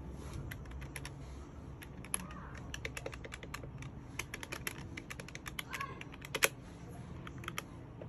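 Plastic keys of a Casio GR-12C desktop calculator being pressed in quick, irregular clicking taps, with one louder tap about six seconds in.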